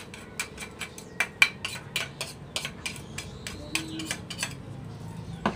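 Light, sharp metal clicks and taps from a metal ladle against a stainless steel basin, several a second at an irregular pace.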